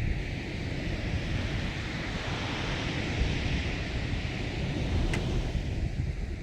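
Sea waves washing, with a hiss that swells through the middle and fades again. Underneath is a steady, gusting rumble of wind on the microphone, and there is one brief click about five seconds in.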